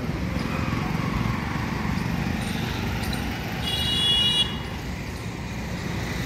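Street traffic: a steady low rumble of vehicle engines, with one horn honk lasting under a second about four seconds in, the loudest moment.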